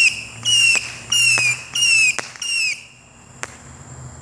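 Whistling fireworks going off in quick succession. Four or five shrill whistles, each dropping slightly in pitch, come in about three seconds, and each is cut off by a sharp crack. One last crack follows a little over half a second after the final whistle.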